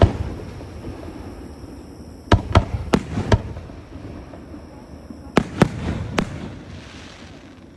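Aerial fireworks bursting: a quick run of four bangs about two seconds in, then three more about five and a half seconds in. A crackling hiss follows near the end.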